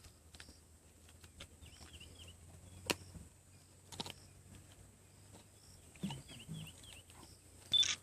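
Quiet bush ambience with small birds chirping in two short runs of quick calls. A few sharp clicks or cracks come through, the loudest about three seconds in, and there is a brief louder sound near the end.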